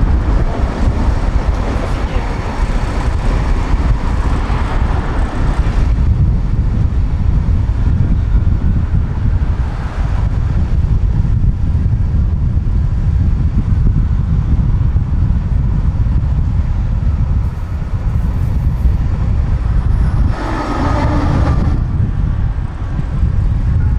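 Tram running along the track: a steady low rumble of wheels on rails and running gear, with a short louder stretch about two-thirds of the way through.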